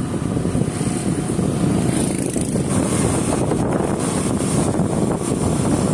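Wind buffeting the microphone over the running of a motor scooter in motion, a steady rumble.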